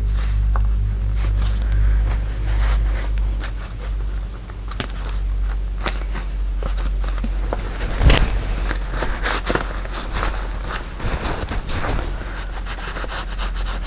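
Paper rustling and crinkling, with irregular taps and rubs as a glued paper pocket is lined up and pressed down on a work surface. The sharpest tap comes about eight seconds in, over a steady low hum.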